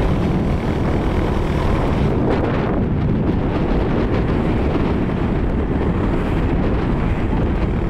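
Steady, loud wind rush on the microphone over the road noise of a moving vehicle.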